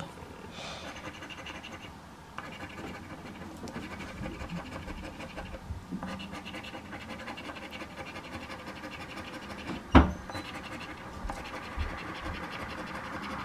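A coin scraping the latex coating off a paper scratch-off lottery ticket on a wooden table, in steady rapid strokes. There is a brief pause about two seconds in and a single sharp knock about ten seconds in.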